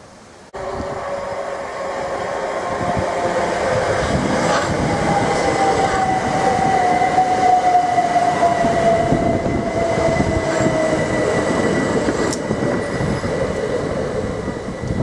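Southeastern Class 375 Electrostar electric multiple unit passing over a level crossing. The train noise starts abruptly about half a second in, builds to a peak midway and eases toward the end, with a whine that slides slowly down in pitch.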